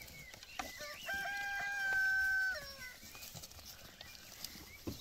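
A rooster crowing once, about a second in: a held call that drops in pitch at its end.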